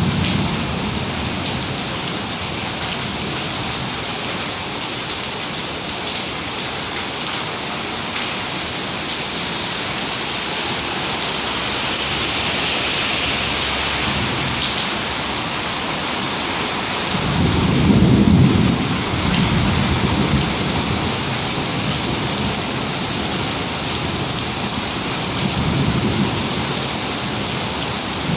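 Steady rain with low rolls of thunder. The loudest rumble comes about two-thirds of the way through, and a fainter one comes near the end.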